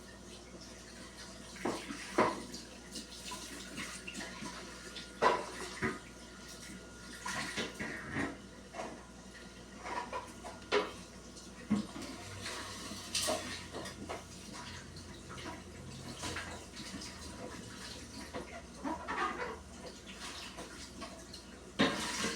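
Water running from a tap while things are washed under it, with irregular knocks and clatter from the items being handled, the loudest about five seconds in and again near the end.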